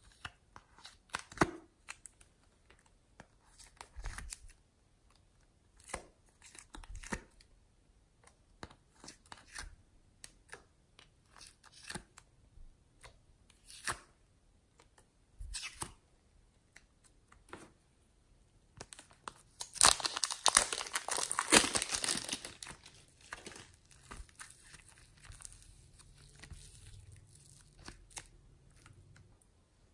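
Clicks and crinkles from thin clear plastic slime and clay containers being handled and opened, with scattered small crackles. A loud, dense run of crackling about twenty seconds in lasts around four seconds.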